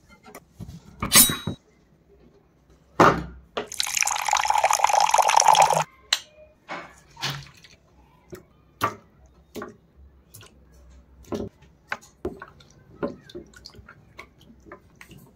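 Two sharp knocks, then water pouring for about two seconds into a glass dish. After that come drips and small splashes as raw chicken drumsticks are lifted out of and rinsed in the water.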